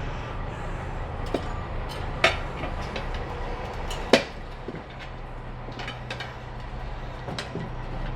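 A few sharp metallic clinks of tire-changing tools against a spoked motorcycle wheel rim, three standing out, over a steady low hum.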